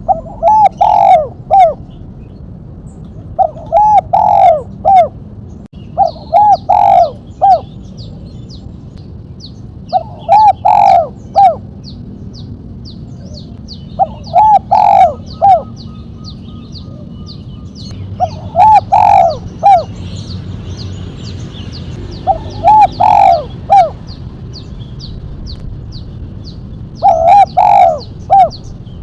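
Spotted dove (tekukur) cooing in the sharp 'mercik' style, a short phrase of three or four notes repeated eight times about every three to four seconds. Faint high chirps tick between the phrases.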